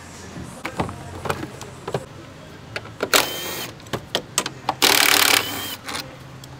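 Cordless power driver running in two short bursts, about three seconds in and again about five seconds in, each with a faint whine as it spins bolts. Scattered clicks and knocks of tools and parts come between them.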